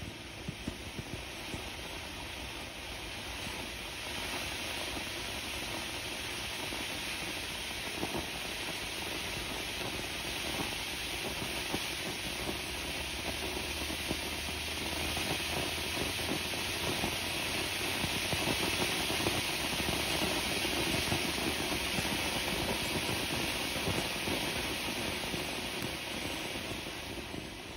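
Ground fountain firework (a multicolour "volcano") burning with a steady hiss of spraying sparks. A few sharp crackles come near the start. The hiss swells somewhat louder in the middle and dies down near the end as the fountain burns out.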